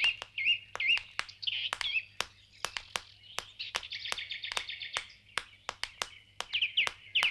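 Birds chirping: short, wavy whistled notes repeated over and over, a fast trill about halfway through, and sharp ticks scattered between the calls.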